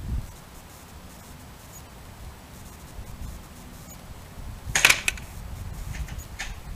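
Modify MOD24 spring-powered bolt-action airsoft sniper rifle: one sharp crack about five seconds in, then a fainter click about a second and a half later.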